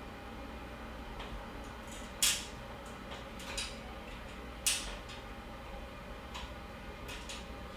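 Small metal parts clicking and clacking against a steel open-frame mining rig as screws and a graphics-card bracket are handled, with two sharper clacks about two and four and a half seconds in and a few lighter ticks between.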